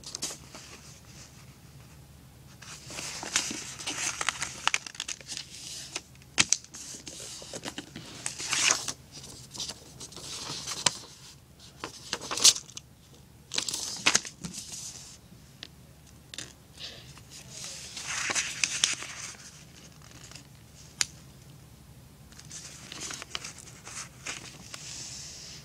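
A sheet of paper rustling and crinkling in hands in short, repeated bursts, with a few sharp clicks, as it is folded into a paper airplane, its top corners being folded down for the nose.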